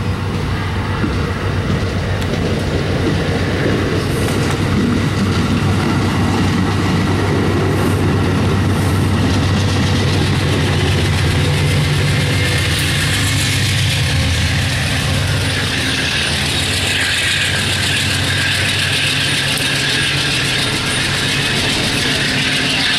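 Shore Line East commuter train rolling past close by: steel wheels on the rails with clicking over the joints and a steady low drone that grows stronger about halfway through as the locomotive at the rear goes by.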